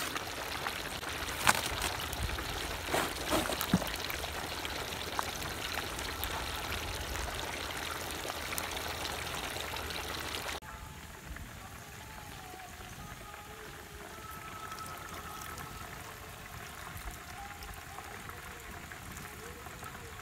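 Whole turkey deep-frying in a large steel pot of hot oil: a dense sizzle with scattered sharp pops. About halfway through it drops suddenly to a quieter, steady sizzle.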